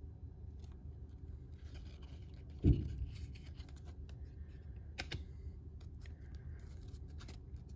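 Trading cards being handled and slid through a freshly opened pack, with faint scraping and a few light clicks. A single low thump about two and a half seconds in is the loudest sound.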